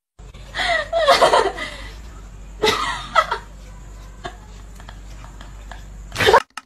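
A person snickering and laughing under their breath in short bursts, with a louder burst just after six seconds, over a steady low hum.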